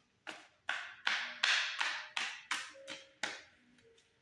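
A deck of oracle cards shuffled by hand: about ten quick swishing strokes, roughly three a second, stopping about three and a half seconds in.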